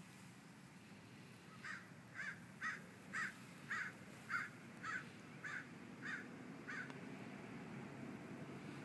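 A bird calling about ten times in a steady series, roughly two short calls a second, that stops about two seconds before the end.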